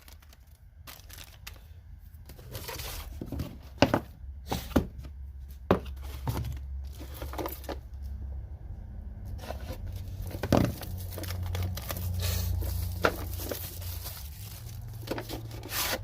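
Impact sockets and their plastic case and packaging being handled: irregular sharp clicks and knocks of metal and plastic, with rustling in between and a low hum underneath.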